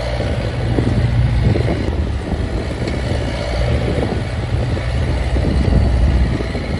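Diesel engine of a 2009 Bobcat S130 skid steer running steadily, a continuous low drone.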